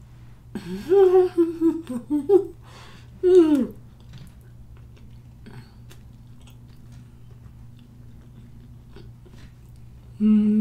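A woman's closed-mouth "mmm" hums, made with her mouth full while she chews hard-boiled egg. A few sliding hums come in the first four seconds, with one falling hum at the end of them, and a longer, steadier hum begins near the end. Between the hums, faint chewing clicks sound over a steady low room hum.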